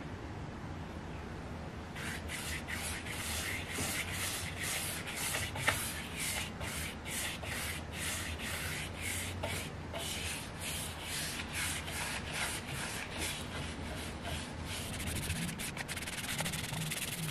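Bristle paintbrush stroking Danish oil onto a jarrah slab: a scratchy swish with each stroke, about two strokes a second, starting about two seconds in.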